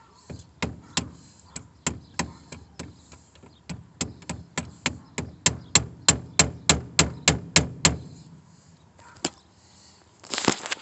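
Hammer tapping a replacement shift lever knob onto a car's automatic-transmission shift lever through a rag: a long run of sharp strikes, about three a second, coming faster and harder in the second half, then stopping about eight seconds in.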